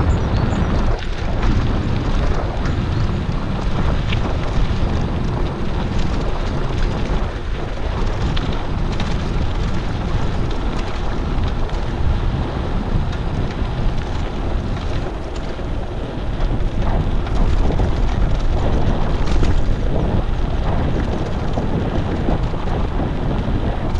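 Wind buffeting the camera microphone: a steady, loud rumbling noise throughout.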